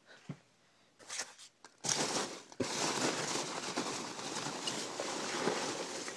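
Plastic packaging crinkling and rustling steadily as parts are handled and unwrapped, starting about two seconds in after a few light clicks.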